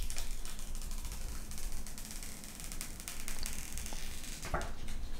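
Protective paper screen wrap being peeled off an iPhone 13 Pro Max: a steady, soft, crackly rustle of paper against glass.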